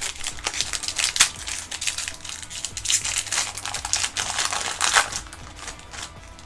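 Foil wrapper of a Pokémon booster pack crinkling and crackling as it is handled and opened by hand, with sharper rustles about one, three and five seconds in.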